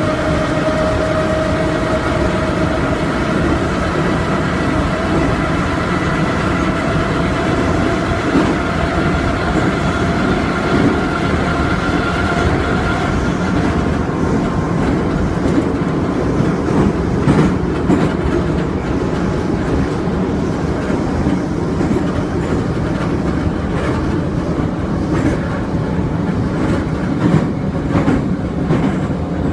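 Metro train running between stations, heard from inside the car: a steady rumble with the whine of the traction motors rising slowly and fading out about halfway, and the rhythmic knocking of the wheels over rail joints in the second half.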